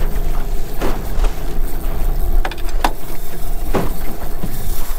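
Outboard motor running on a small aluminium boat under way, with a steady rumble of wind and water and a few short sharp knocks.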